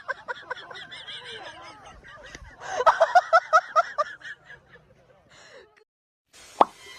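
A bird giving rapid runs of short, repeated pitched calls, about five a second; a louder run comes near the middle. A brief sharp sound follows near the end.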